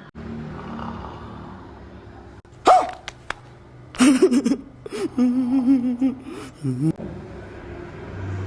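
Exaggerated snoring from a person: a sharp snort nearly three seconds in, then a run of loud, wavering, pitched snores, the last one dropping in pitch.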